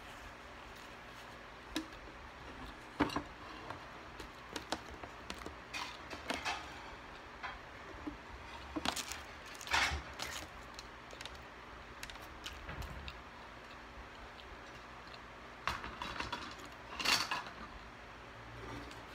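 Scattered rustles, clicks and light knocks of a plate and paper food wrappers being handled and cleared off a table, loudest about ten seconds in and again near the end.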